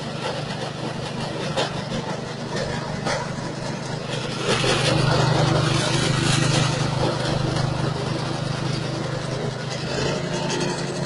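Straw and grass chopper driven by a 6.5 hp engine, running steadily while straw is fed through it and shredded, with scattered sharp crackles from the cutting. It grows louder from about four and a half seconds in to about seven seconds.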